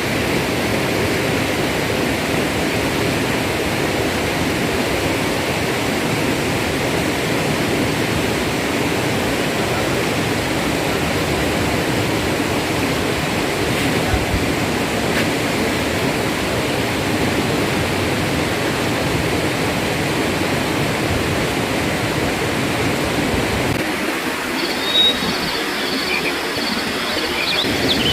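River water rushing steadily over rocks. Near the end the deep part of the rush fades and small birds chirp over it.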